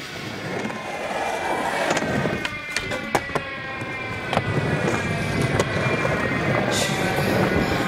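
Skateboard wheels rolling on concrete with a steady roar and a faint, slowly falling whine. Several sharp clacks of a board sound between about two and five and a half seconds in.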